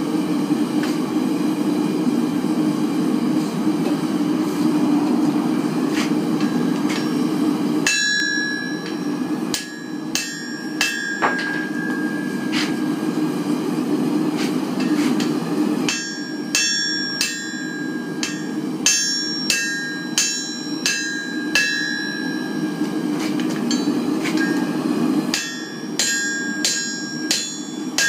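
Steel hammer striking metal on an anvil to straighten it, in three runs of blows about two a second. Each blow rings with a high, clear tone. A steady rushing noise runs underneath and is heard alone for the first several seconds, before the hammering starts.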